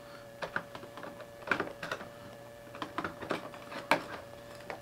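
Scissors snipping through plastic zip ties that hold toy figures to a cardboard packaging insert: a scattering of short, sharp clicks at irregular intervals.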